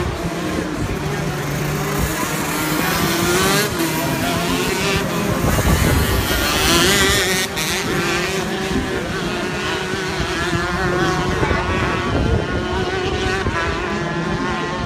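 Shifter kart's two-stroke engine running hard, its pitch rising and falling repeatedly as it revs up and drops back.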